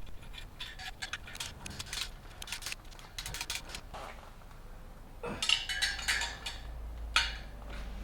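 Metal parts and hand tools clinking and tapping irregularly as bolts and hardware are fitted by hand, with a louder metallic clatter about five seconds in.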